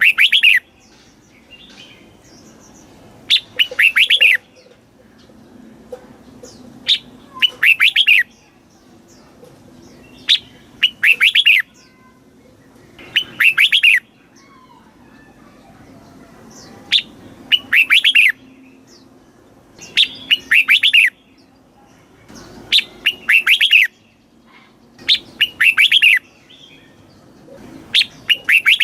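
Red-whiskered bulbul singing: a short, loud phrase repeated about every three seconds, each a single sharp note followed by a quick run of several falling whistled notes.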